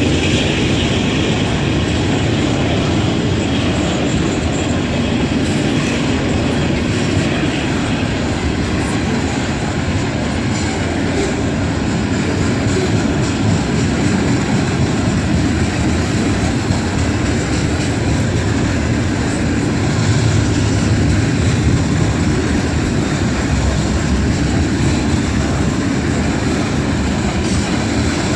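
Freight train of covered hopper cars rolling past: a steady rumble of steel wheels on rail with clickety-clack over the rail joints.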